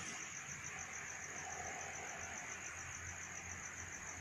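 Crickets chirping in a steady, rapid, even pulse.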